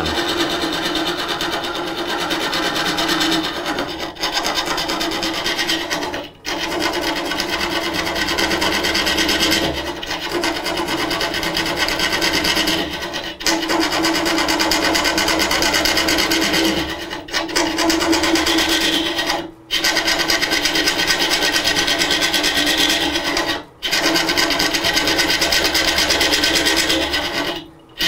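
Carbide-tipped hollowing tool on an articulated hollowing arm scraping inside a slowly turning block of hard, dry wood on a lathe, small nibbling cuts. It is a steady rasping cut that drops off briefly several times as the cut pauses.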